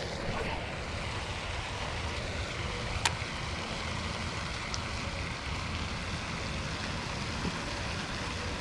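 Steady outdoor wind noise buffeting the microphone, with one sharp click about three seconds in.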